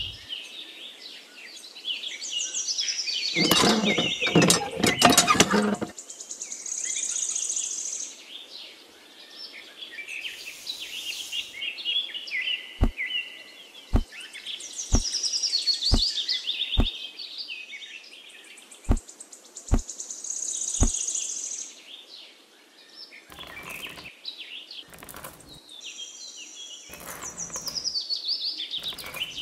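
Birds chirping and tweeting throughout. A louder rush of noise comes a few seconds in. Later, about eight light knocks are spread over several seconds as small pebbles are set down around a toy pump.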